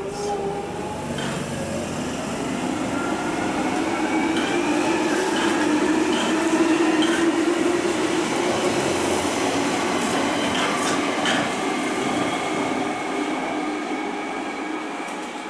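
London Underground Jubilee line 1996 Tube Stock train pulling out and accelerating away, its traction motors whining in several slowly rising tones over a steady drone. A few short clicks come from the wheels over the track.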